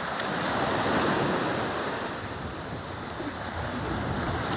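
Sea surf washing onto a beach, with wind rumbling on the microphone. The wash swells about a second in and eases off around three seconds.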